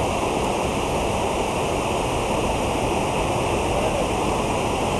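Water pouring over a small box-shaped dam spillway and splashing into the pool below: a steady rush of falling water.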